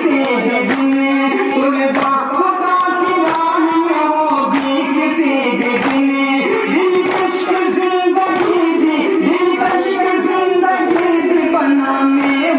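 A nauha, a Muharram mourning lament, sung by men's voices in a steady chanted melody, with rhythmic chest-beating strikes (matam) keeping time about every two-thirds of a second.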